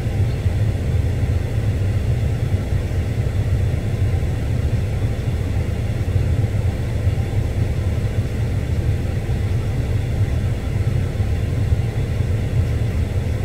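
A steady low rumble, unchanging throughout.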